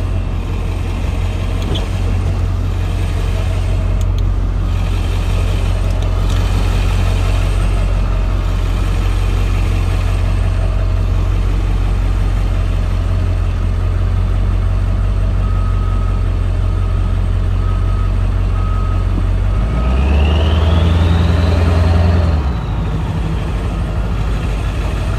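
Motorhome engine running steadily at low speed in the cab, heard from inside. About twenty seconds in the engine note swells and rises for a couple of seconds, then drops back to a steady run.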